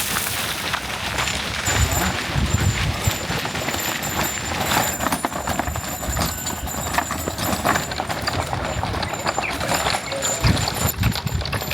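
Homemade wooden cart on steel ball-bearing wheels (carreta de baleros) rolling over pavement, the bearings making a continuous, irregular rattling clatter.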